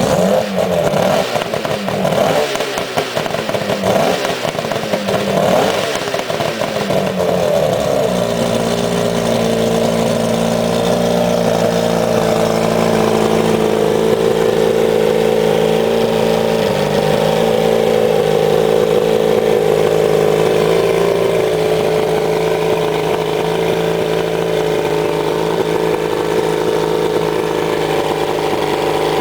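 1998 Force 120 HP two-stroke outboard engine running: its speed is blipped up and down several times in the first seconds, then held at a steady, higher speed.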